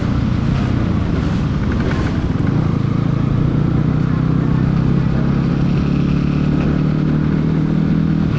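Bajaj Pulsar NS200's single-cylinder engine running at a steady cruise, heard from the rider's seat. Its note settles to an even pitch about three seconds in.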